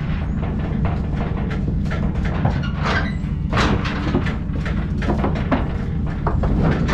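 Irregular knocks, thumps and clatter over a steady low rumble.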